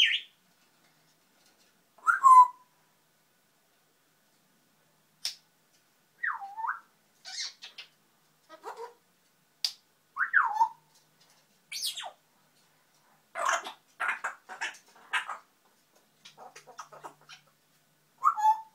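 African grey parrot babbling to itself in short, separate calls: whistles that glide down or dip and rise in pitch, sharp clicks, and a quick run of noisy chatter calls about two-thirds of the way through.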